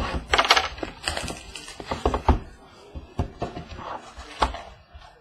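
A sealed box of trading cards being handled and opened: crinkling and rustling of wrapper and cardboard, with many short knocks and taps.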